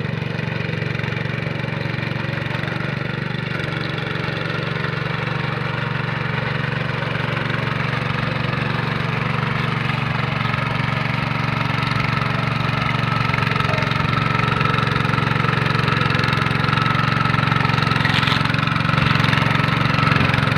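Hand tractor rotavator engine running steadily, growing slowly louder over the stretch.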